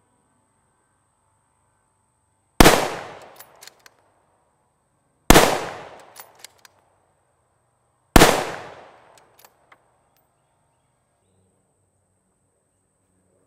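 Three unsuppressed .308 Winchester rifle shots from a Remington 700 with a 20-inch barrel and a Dual-LOK tactical compensator, about two and a half seconds apart. Each is a sharp crack with a long fading tail, followed by a couple of faint ticks.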